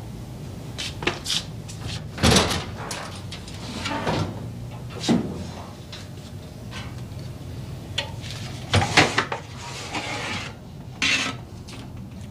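A shallow drawer being slid out of a specimen cabinet, with scraping rubs and separate knocks from handling.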